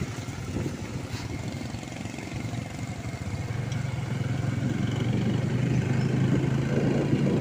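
Small motorcycle engine running steadily while riding, its low hum growing louder about halfway through.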